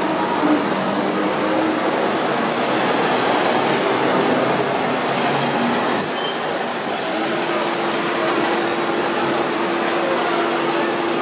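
Hong Kong double-decker tram running along street track, heard from on board: a steady rumble and rattle of wheels on rails, with a few brief high squeals about six seconds in and a steady low hum joining from about seven seconds in.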